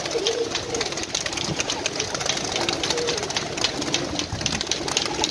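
A flock of Iranian highflyer pigeons at close range, with a dense, continuous patter of wingbeats and wing claps as birds flutter up and take off.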